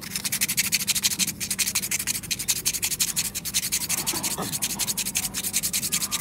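Sandpaper rubbed by hand back and forth over the inside of a dried coconut shell half: a fast, even scratching of quick repeated strokes, sanding away the shell's fibres and dust.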